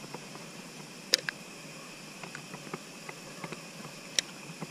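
Steady high chorus of night insects such as crickets, with two sharp clicks, about a second in and near the end, and scattered light ticks between them.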